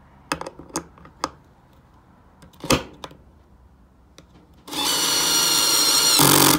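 Dewalt 12V Xtreme cordless screwdriver running for about a second and a half as it drives a small screw into plywood, then turning into a louder rapid rattle near the end as its clutch, on setting four, slips. A few light clicks and a sharper knock of handling come first.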